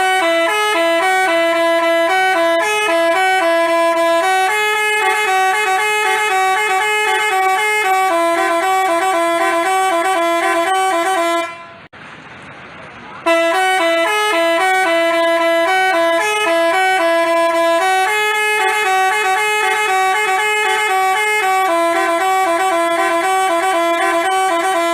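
Bus 'telolet' Basuri multi-tone horn playing a tune of short stepped notes in two parts, about eleven seconds long; it stops briefly near the middle, then plays the same tune again.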